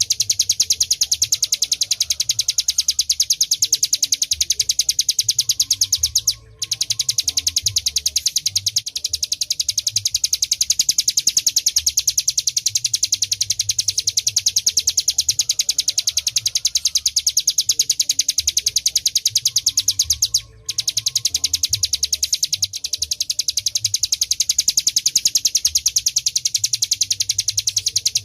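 Ciblek gunung, a prinia, singing a fast, unbroken trill of rapid high notes, with two brief breaks about six and twenty seconds in. A faint low rumble sits underneath.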